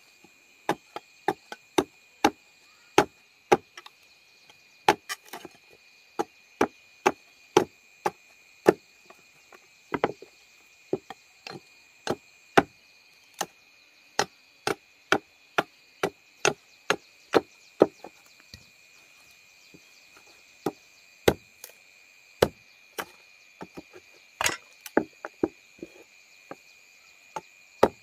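Chopping strokes of a blade into wood, one or two sharp knocks a second at an uneven pace, over a steady high-pitched drone.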